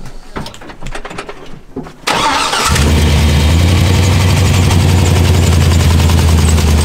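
LS V8 engine in a square-body GMC K20 pickup cranking and catching about two seconds in, then running steadily with a deep, even rumble. Before it starts there are a few light knocks.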